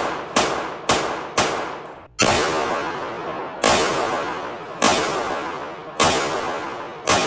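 Pistol shots from a Staccato XC: a quick string of shots about half a second apart, then five more spaced a little over a second apart. Each shot rings out with a long echo off the indoor range's walls.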